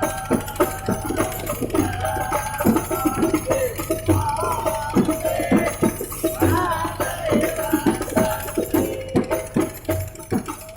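Hadroh ensemble playing sholawat: fast interlocking strokes on hand-struck frame drums, with a deep bass drum beat every couple of seconds, under voices singing.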